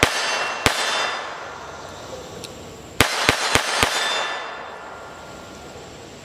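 CZ-50 pistol firing .32 ACP: two shots about two-thirds of a second apart, then a quick string of four about three seconds in. Each crack is followed by a long echo dying away.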